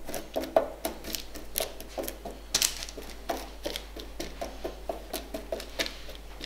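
Silicone spatula spreading seasoned cooked chickpeas across a parchment-lined baking tray: irregular soft scrapes on the paper and small clicks of the chickpeas rolling and knocking together, several a second.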